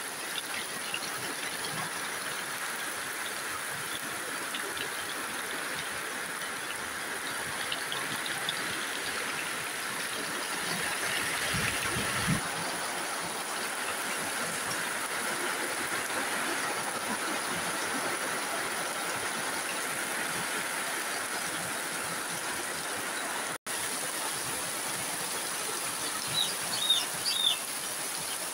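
Heavy rain pouring down steadily, hissing on standing water and splashing into brimming tubs and a bucket. A dull thump comes about twelve seconds in, and a few short, sharp high ticks come near the end.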